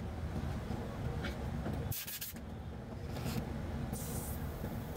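Compressed air hissing briefly from a shop air hose, twice, about two seconds in and again near four seconds, over a steady low rumble. The air line is used to pressure-test a repaired radiator cooler for leaks.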